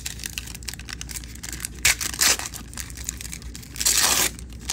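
Hands tearing open the thin white wrapper around a stack of Magic: The Gathering land cards: crinkling with a few short rips about two seconds in and a longer rip near the end.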